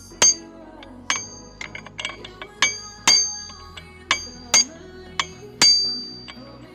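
Hammer striking a chisel set against a bolt inside a Honda Vario 125 scooter's CVT case, to tighten the bolt that had come loose. About a dozen sharp, ringing metal strikes, roughly two a second.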